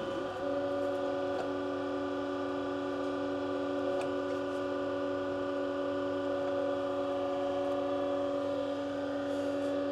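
Brown & Sharpe 618 Micromaster surface grinder running with its table traverse stopped: a steady machine hum made of several held tones, settling slightly about half a second in.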